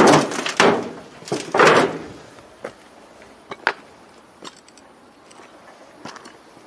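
Footsteps scuffing and crunching on a gritty floor of rubble: two loud scrapes in the first two seconds, then a few faint, scattered clicks and knocks.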